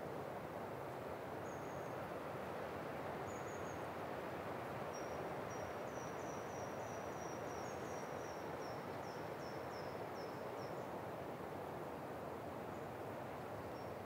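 Steady wind in pine trees, with a small bird singing over it: a couple of single high notes, then from about five seconds in a run of quick repeated high notes, roughly three a second, each dipping slightly in pitch, that stops about eleven seconds in.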